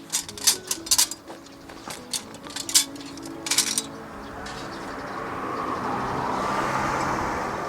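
Several sharp metallic clinks and knocks, then a rush of noise that swells over a few seconds and eases off near the end, over soft background music.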